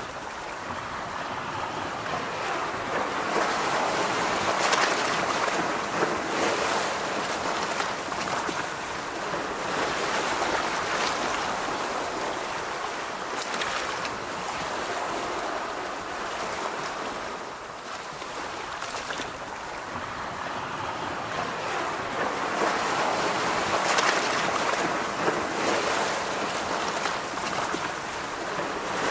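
Sea waves breaking and washing on a shore, rising and falling in slow surges every several seconds.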